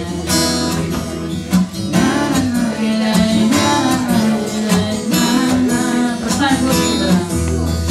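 Acoustic guitar being strummed in a steady rhythmic pattern, playing the opening chords of a worship song.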